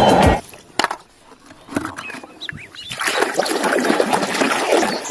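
Water splashing and sloshing as a muddy toy cement-mixer truck is washed by hand, after a couple of sharp knocks about a second in. Background music cuts off just after the start.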